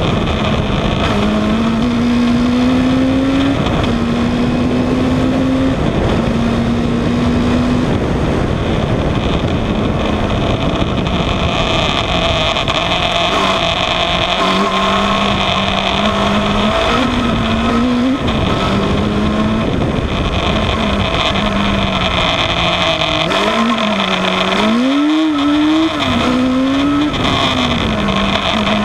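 Kawasaki ZZR1100 inline-four motorcycle engine in a Terrapin single-seater racing car, heard onboard at full throttle: the note climbs and drops back at each of several quick upshifts in the first eight seconds. Later the revs swing up and down rapidly as the car brakes and accelerates through the corners, with wind rushing over the microphone throughout.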